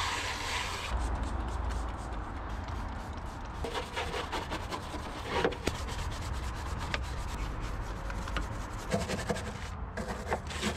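A hose spray hisses for about a second, then a hand brush scrubs wet, soapy, grimy metal in the car's engine bay in quick, irregular rubbing strokes.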